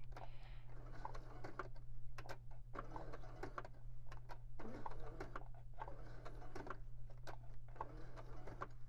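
Electric sewing machine stitching slowly through a paper journal card, in short stop-start runs with irregular clicks as the card is guided and turned by hand, over a steady low hum.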